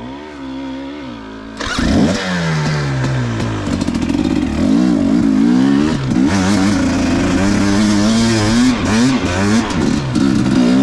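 KTM dirt bike engine running at low revs, then opened up sharply about two seconds in and revving hard, its pitch rising and falling with the throttle.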